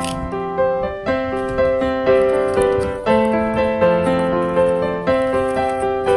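Background music: a gentle piano or electric-piano melody over held chords, with notes struck about twice a second.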